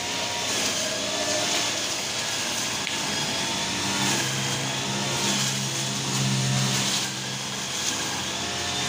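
Petrol brush cutter running steadily, its engine note wavering slightly in pitch.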